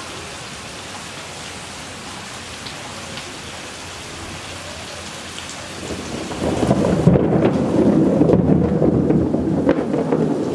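Steady rain falling on a street and yard. About six seconds in, a loud, low rumble of thunder builds up and keeps rolling over the rain.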